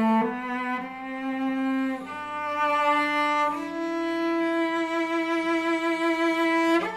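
A bowed string instrument playing a slow line of long held notes that climb in pitch, the longest held about three seconds.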